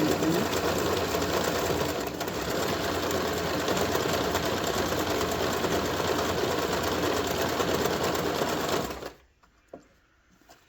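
Janome RE1712 sewing machine stitching at a steady speed, then stopping abruptly about nine seconds in.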